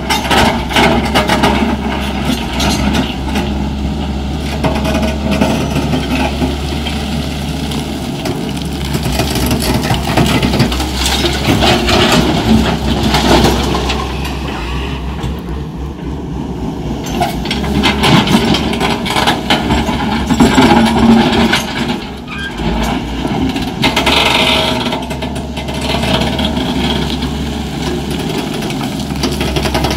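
Hyundai 210 crawler excavator's diesel engine running steadily, with repeated knocks and clatter of earth and stones as the bucket digs into the bank and dumps its load into a tipper truck.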